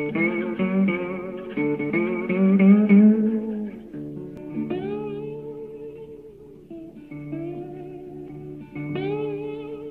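Instrumental background music led by a guitar playing a melody with bent, wavering notes. It starts abruptly and is loudest in the first few seconds, then softer.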